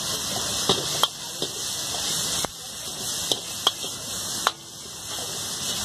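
Stir-frying in a large iron wok: a steady hissing sizzle as a metal ladle tosses vegetables and Manchurian balls, with about six sharp clanks of the ladle striking the wok.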